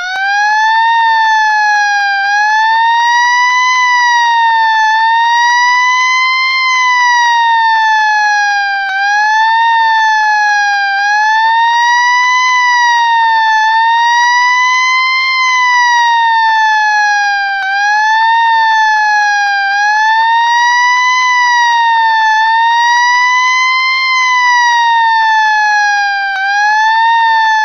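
Fire engine siren wailing loudly, its pitch rising and falling slowly in uneven sweeps about every two to three seconds.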